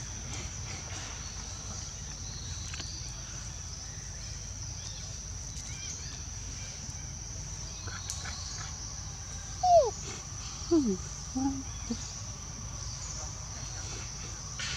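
Steady high-pitched drone of crickets or cicadas in forest. About ten seconds in, a few short, louder calls slide downward in pitch.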